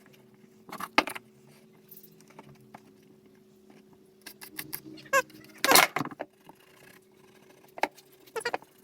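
Scattered light clicks, taps and small rattles, as of small hard objects or tools being handled, over a faint steady hum. The loudest knock comes about six seconds in.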